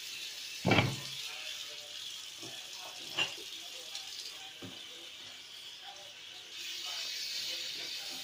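Pot of water with fried tilapia heating under a glass lid on a gas stove, starting to bubble, with a steady hiss that grows a little louder about two-thirds of the way through. A loud knock comes about a second in, a sharper click a couple of seconds later, and a few faint ticks between.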